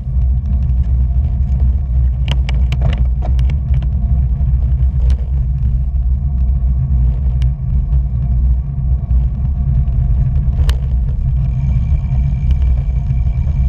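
Steady low engine rumble of a motor vehicle driving along a road, with a few sharp clicks two to three seconds in and another later on, and a faint high whine coming in near the end.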